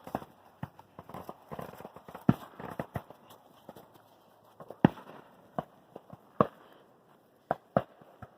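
Fireworks and firecrackers going off in the distance: a scattered run of sharp, irregular pops and bangs, the loudest about two seconds in and again near the five-second mark.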